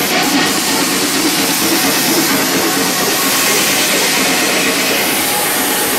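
Dense crowd din close to the microphone: many people cheering and shouting at once as a steady, loud rushing noise that covers the party music.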